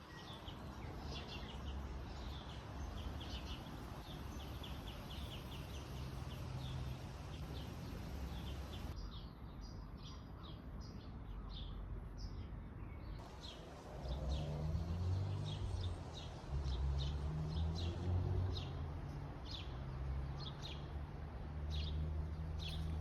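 Small birds chirping repeatedly, in many short high calls, over a low rumble that gets louder a little past halfway.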